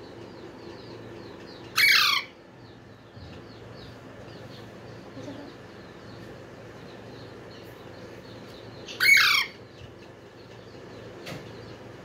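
Pet parakeet squawking twice, about seven seconds apart; each call is loud and harsh, lasts about half a second and falls in pitch.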